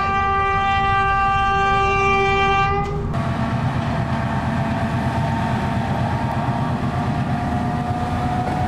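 Diesel locomotive sounding its horn in one long steady blast that cuts off about three seconds in. Its engine then runs on with a rumble as it comes out of a tunnel towards the listener.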